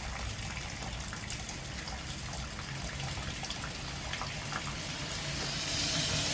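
Rain falling steadily with water running and splashing and scattered drops ticking; the hiss grows louder near the end as the storm picks up.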